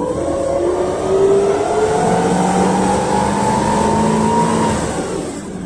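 PAZ 32054 bus's ZMZ-5234 V8 engine, running on LPG, accelerating through a gear with a steadily rising note, heard from inside the passenger cabin. The note drops away near the end as the engine lets off.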